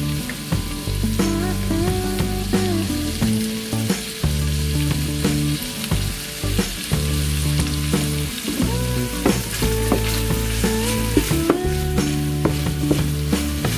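Tuna and eggs sizzling in a non-stick frying pan, with a spatula scraping and clicking as the food is stirred. Background music with held, gliding tones plays underneath throughout.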